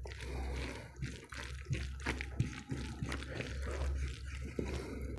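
Fingers mixing boiled rice with runny masoor dal and fried rohu fish on a plate: wet squishing with many small clicks, over a low steady hum.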